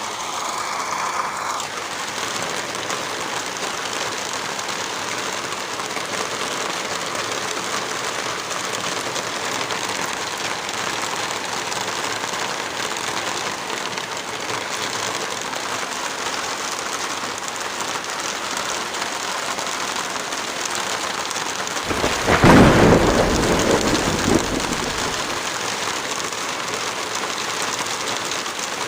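Steady rain, with one clap of thunder about three quarters of the way through that rumbles on for about three seconds before fading.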